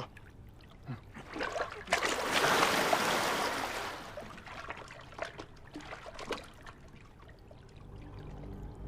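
Water splashing and sloshing as people lower themselves into the water. The loudest rush of water comes about two seconds in and lasts about two seconds, followed by smaller splashes and trickling.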